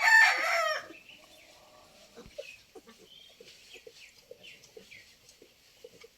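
A rooster crowing once at the start, followed by quieter short clucks and small chirping calls of chickens.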